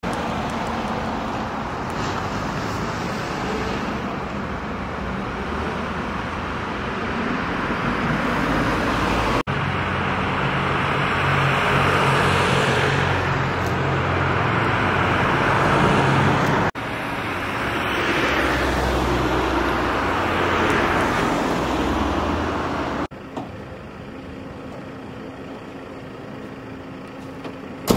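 Road traffic: cars passing one after another, their tyre and engine noise swelling and fading. Near the end it drops quieter, leaving a steady low hum.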